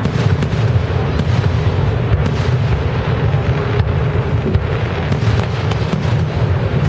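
Aerial fireworks shells bursting in rapid, continuous succession: a constant low rumble of bangs with many sharp cracks and pops on top.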